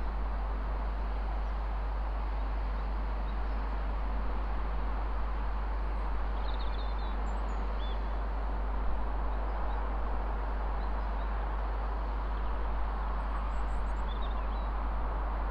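Steady outdoor background noise with a deep rumble underneath, and a few brief bird chirps about six seconds in and again near the end.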